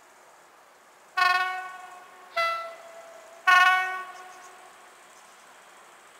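RP1 horn of a PKP EP07 electric locomotive sounding three blasts about a second apart. The first and third blasts are the longest and share one tone; the shorter middle blast is at a different pitch. Each blast rings away afterwards.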